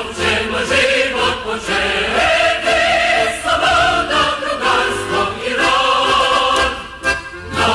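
A choir singing in full, sustained chords, with short breaks between phrases about two seconds in and again near the end.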